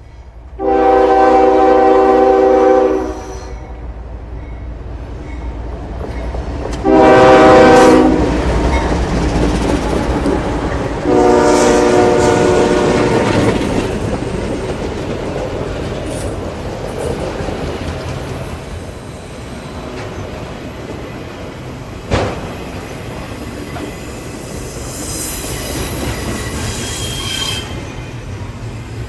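Diesel freight locomotive's air horn sounding a long, a short and a long blast. Then the train rolls past: locomotives and autorack cars rumbling over the rails, wheels clicking over joints, one sharp knock, and a brief high wheel squeal near the end.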